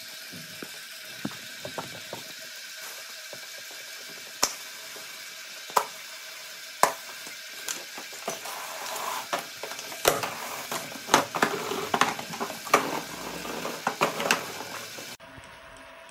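Mecanum-wheel roller conveyor module, its wheels driven by poly-V belts, running with a steady motor whine while a package rides over the wheels with irregular clicks and knocks that grow busier partway through. Near the end it drops to a quieter steady hum.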